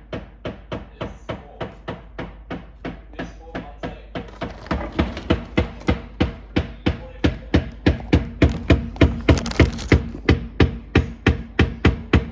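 LG refrigerator knocking rapidly and regularly, about three knocks a second, getting louder a little under five seconds in. This is the fridge's fault of loud banging and knocking at random times.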